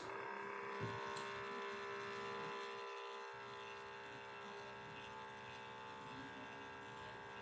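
A click, then the small electric gear motor of a motorised gas valve actuator running with a steady whine.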